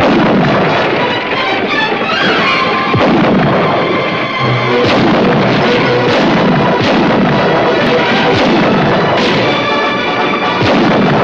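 Orchestral western film score with full ensemble and sharp percussion strikes every second or two.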